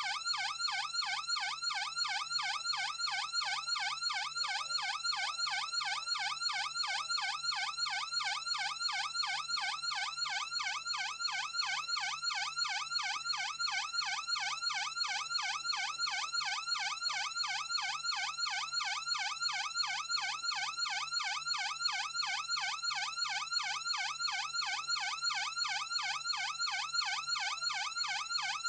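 Electronic police siren on a rapid yelp, its pitch sweeping up and down several times a second at a steady, unchanging level.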